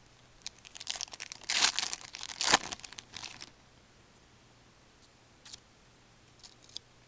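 A 2008-09 Fleer Ultra hockey card pack wrapper being torn open and crinkled: a run of crackling rustles lasting about three seconds, followed by a few faint clicks.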